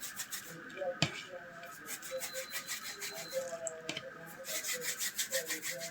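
Hands rubbing a bread loaf into fine crumbs: quick, rhythmic rasping strokes that come in short bursts with brief pauses between them.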